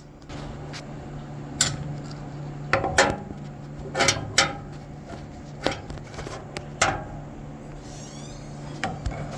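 Metal parts clanking and knocking as an electric motor is handled and positioned on the saw, about half a dozen sharp knocks over a steady low hum.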